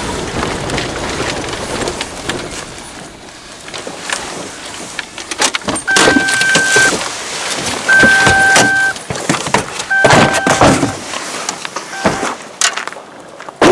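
Vehicle driving fast over rough off-road ground, with engine noise and repeated knocks and rattles as it bounces. About halfway through, a steady electronic-sounding tone sounds four times, about a second each, roughly two seconds apart.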